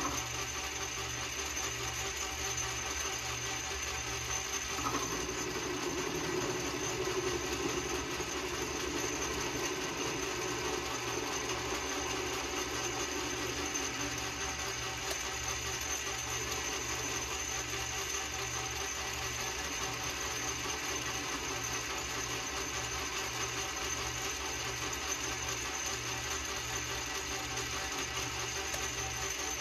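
Metal lathe running steadily while facing the end of a 1-inch cold-rolled steel bar. A louder cutting sound comes in about five seconds in and fades out around the middle.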